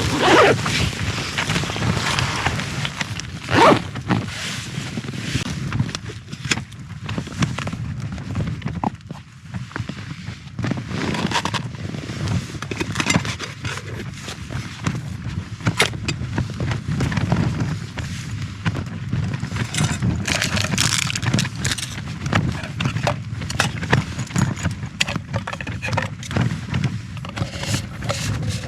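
Irregular rustling and scraping with zip-like rasps, as gear and fabric are handled, over a steady low rumble of strong wind.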